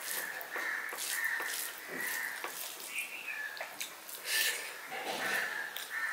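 Fingers squishing and mixing wet rice with leafy greens on a steel plate, then a mouthful taken and chewed about four seconds in. Crows caw repeatedly in the background throughout.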